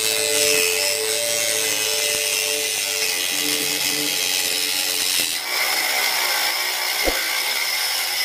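Homemade mini table saw: its small electric motor whines steadily while a thin wooden strip is fed into the spinning blade, giving a rasping cut. About five seconds in the motor's whine falls away and the cutting hiss goes on, with a single sharp knock near seven seconds.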